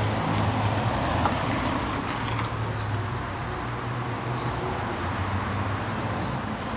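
Road traffic noise: a steady low engine hum and tyre noise from passing vehicles, a little louder in the first couple of seconds and then easing off.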